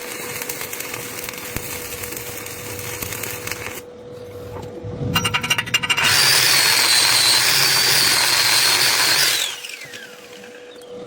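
Crackling hiss consistent with a welding arc. After a short pause and some rapid clattering, an angle grinder starts and runs loud and steady for about three and a half seconds, then winds down with a falling whine.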